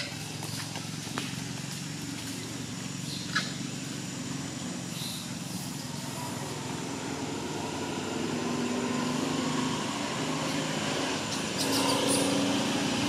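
An engine running steadily nearby, its hum growing louder over the last few seconds, with a short high squeak about three seconds in.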